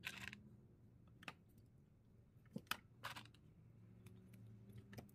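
Faint clicks and short rustles from hands working a car-stereo wiring harness, plastic wire connectors and hand tools. There is a rustle at the start, a click about a second in, a cluster of sharp clicks and another rustle around the middle, and a last click near the end.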